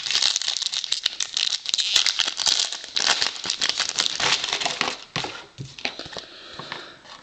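Plastic wrapper of a baseball card pack crinkling as it is torn open and the cards are pulled out. About five seconds in it gives way to softer sounds of the cards being shuffled in hand.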